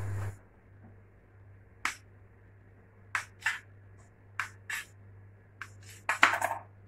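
A blade chopping down through soft dough onto a tiled counter: a string of about ten sharp, irregularly spaced taps, coming faster and louder near the end, as the dough is cut into pieces.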